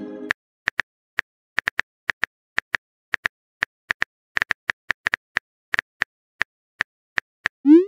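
Texting-app keyboard typing sound effect: short, sharp taps at an uneven pace, about two or three a second. A chiming message tone fades out at the very start, and a rising bloop begins right at the end.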